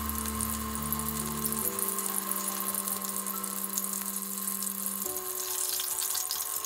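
Tempura deep-frying in a pot of hot oil: a steady crackling sizzle that grows denser near the end. Background music with long held notes plays along.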